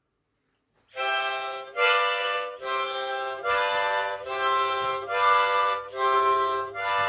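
Harmonica playing a lively tune as a run of held chords, each a little under a second long with short breaks between, starting about a second in.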